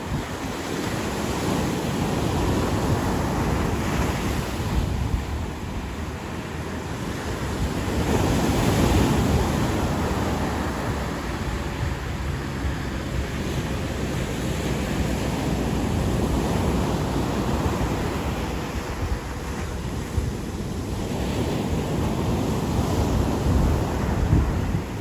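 Ocean waves breaking and washing on a beach, swelling and easing in slow surges, with wind buffeting the microphone.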